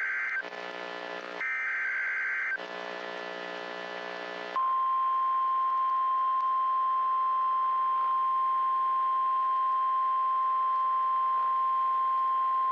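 NOAA Weather Radio emergency alert signal: the tail of one SAME digital header burst, then a second full burst of warbling data screech about a second and a half in, each about a second long, with radio hiss between them. About four and a half seconds in, the steady single-pitch 1050 Hz warning alert tone starts and holds, the signal that a warning broadcast follows.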